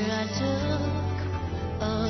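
Background music: sustained low notes under a melody line.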